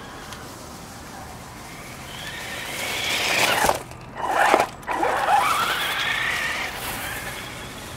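RC car driving across grass and dry fallen leaves: its motor whine rises and falls in pitch as it comes close and moves away, cutting out sharply twice for a moment near the middle.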